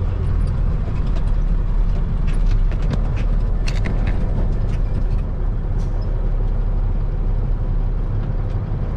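Diesel semi-truck engine idling steadily, with a few light clicks about three to four seconds in.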